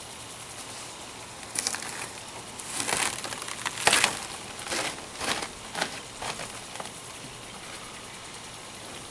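Irregular bursts of rustling and crackling, loudest about four seconds in, over a steady background hiss.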